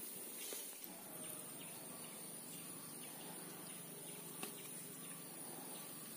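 Faint outdoor ambience: a steady high insect hum with a few faint bird chirps and a couple of soft ticks.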